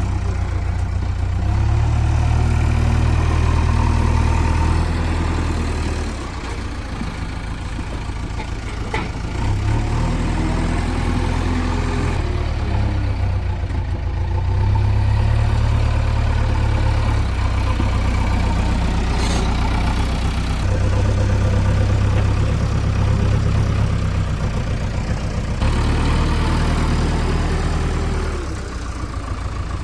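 A JCB 3DX backhoe loader's diesel engine runs continuously, revving up and dropping back several times as the machine works.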